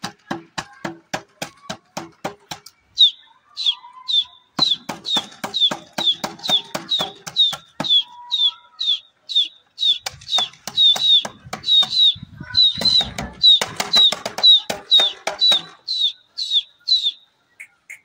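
Background music with a steady beat: sharp percussive ticks at first, then a short, high, chirp-like note repeating about three times a second over the beat, stopping near the end.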